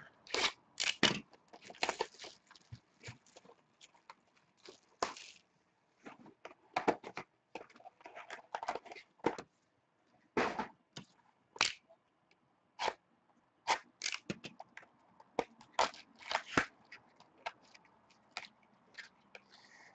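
Hands opening sealed trading-card boxes and their packaging: irregular crinkling, tearing and cardboard clicks.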